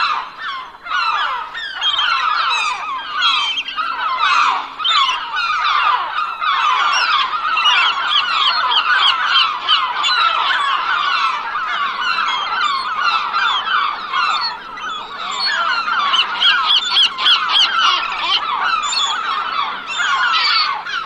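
A flock of gulls calling, many short, overlapping calls at once in a continuous clamour.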